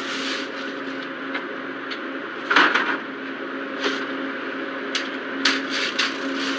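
A steady hum with a handful of sharp knocks and clatters over it, the loudest about two and a half seconds in.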